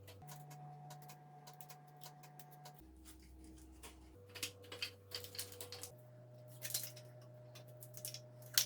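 Scattered light clicks and taps, like small parts being handled and fitted together. Under them runs quiet background music of held low notes that change every second or two.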